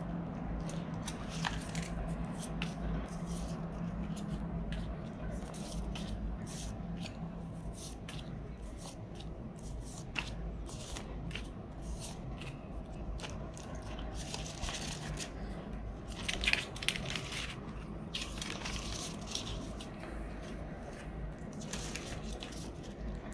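Clear plastic zip pouches and polymer banknotes rustling and crinkling as they are handled and sorted, in many short sharp crackles that grow denser and louder a little past the middle, over a low steady hum.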